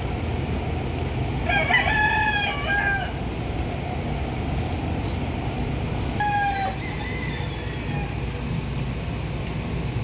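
A rooster crowing once, a call about a second and a half long starting about one and a half seconds in, then a brief second call about six seconds in, over a steady low rumble.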